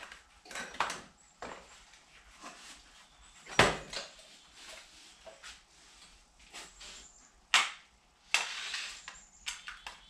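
Hand tools and metal parts clinking and knocking against each other and on the concrete floor while a motorcycle's rear wheel is being taken off. The sounds come as scattered clicks, with two sharp knocks about three and a half and seven and a half seconds in and a short rattling burst near the end.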